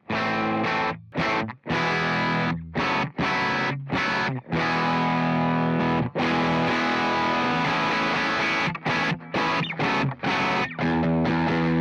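Distorted electric guitar played through effects pedals: chords struck and choked off sharply again and again, with a longer held chord passage in the middle.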